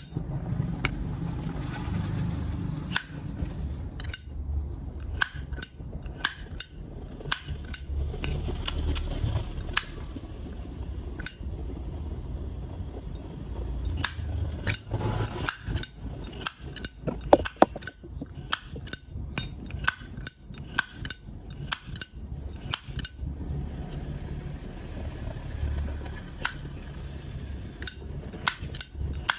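Vintage Zippo lighter's hinged metal lid being flicked open and snapped shut over and over. It makes many sharp, irregular metallic clicks and clinks, some in quick clusters, each with a brief ring.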